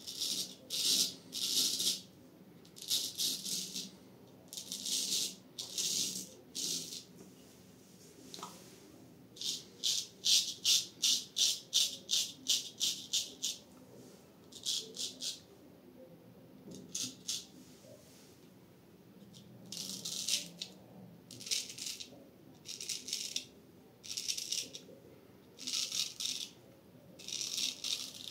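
Full-hollow-ground Ch. Suy straight razor scraping through lathered stubble in short strokes: groups of crisp rasping strokes, with a fast even run of about three strokes a second around ten to thirteen seconds in.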